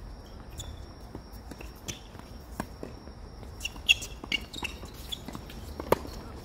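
Tennis rally: sharp hits of racket on ball, the loudest about four and six seconds in, with lighter knocks and footsteps on the court between them.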